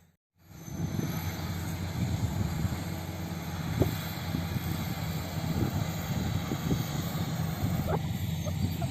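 D85SS crawler bulldozer's diesel engine running steadily under load, with scattered short knocks and cracks from the machine at work clearing land. The sound cuts in just after a brief gap at the start.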